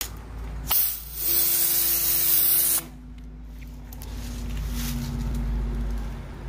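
Karcher K3.91 electric pressure washer spraying concrete. A short burst comes just before a second in, then a loud hissing spray with the pump motor's steady whine under it for about a second and a half. After that it drops to a quieter, steady low hum.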